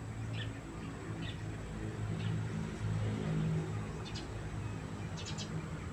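Small birds chirping in short, faint calls every second or so, over a low steady hum.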